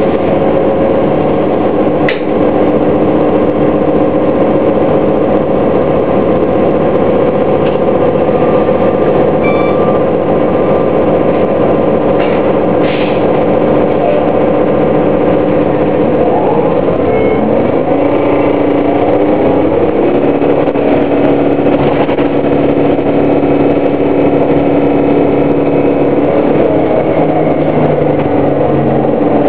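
Orion VII Next Generation hybrid-electric bus drivetrain, with a Cummins ISB diesel and BAE HybriDrive, running with a steady hum and several held tones. Just past the middle, the tones glide upward and settle at new pitches as the drivetrain changes speed.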